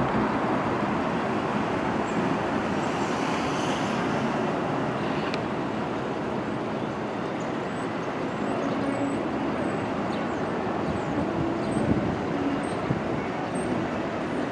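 Steady rumble of an R62A subway train running away along an elevated steel line, blended with street traffic below. A few faint, short, high squeaks come in the second half.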